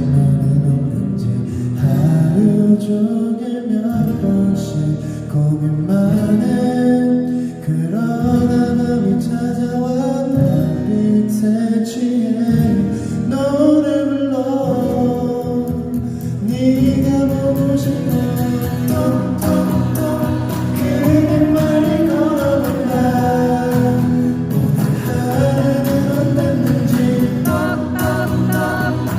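A male singer singing a pop song live over amplified instrumental backing at a sound check. The melody moves continuously over a steady low accompaniment.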